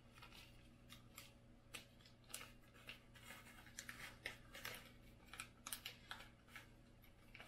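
Faint, irregular small clicks and rustles of M3 screws and nuts being handled in the fingers, over a low steady hum.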